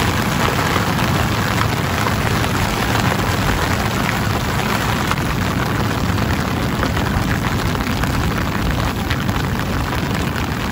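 Heavy rain pouring steadily onto the water of a flooded rice paddy, an even hiss with no letup.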